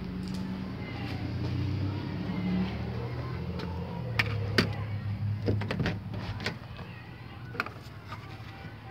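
Knocks, clicks and rubbing from a phone being handled close against objects, over a low steady hum that fades out about six seconds in.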